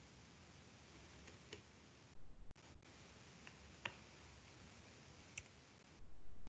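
Faint, scattered computer keyboard key clicks as a line of code is typed, with two brief low bumps, one about two seconds in and one near the end.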